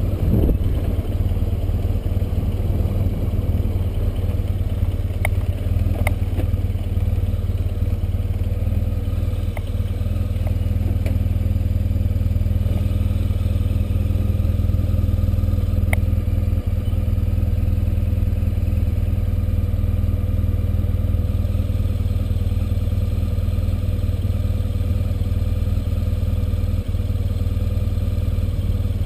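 Motorcycle engine running steadily at low road speed, heard from on the bike, its low hum even throughout. A few light clicks sound over it in the first half.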